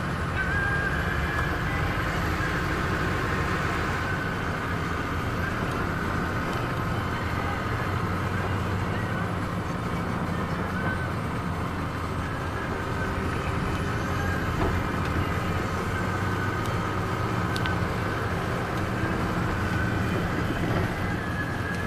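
Car engine and tyre noise heard from inside the cabin while driving at a steady speed on a paved road: a steady rumble with a faint high whine above it.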